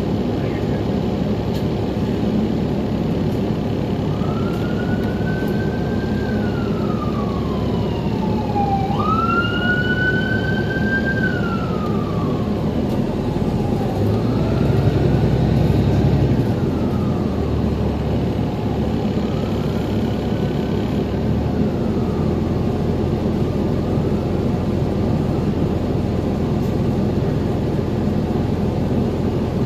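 Steady running noise of a 2021 New Flyer XDE40 Xcelsior hybrid bus, with an emergency vehicle's siren wailing up and down from about four seconds in, loudest around ten seconds and fading out by about twenty seconds. A low rumble swells briefly about halfway through.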